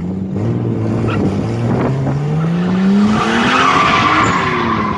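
Nissan Skyline R33's engine revving, its pitch climbing steadily over about three seconds, with tyres squealing loudly in the second half.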